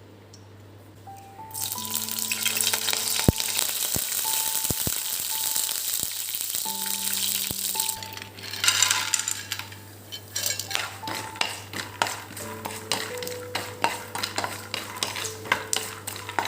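Food sizzling in hot oil in a pan, starting about a second and a half in and dying down around eight seconds, followed by a run of quick clinks of a utensil stirring in the pan. Soft background music plays throughout.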